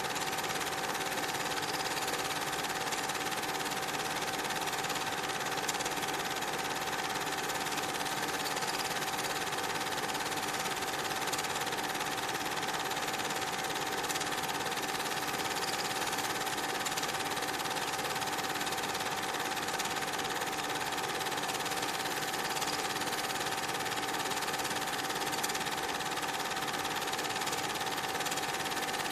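Steady mechanical whirr with a constant whine, unchanging throughout: the running noise of a film projector rather than the trains on screen.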